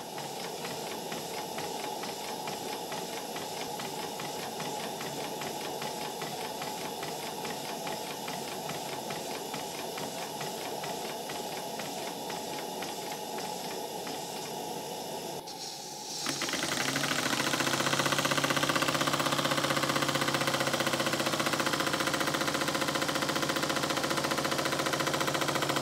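Small brass model horizontal steam engine running on steam: a fast, even beat of its exhaust and working parts over a steady steam hiss. It becomes clearly louder and brighter about two-thirds of the way through.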